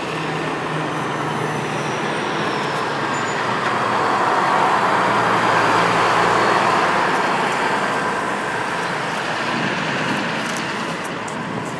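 Road traffic: a passing vehicle's noise swells to a peak about halfway and then fades.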